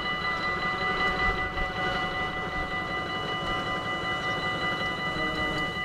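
Dutch level crossing bell ringing steadily with very rapid strikes as the barrier arms rise, over a low rumble.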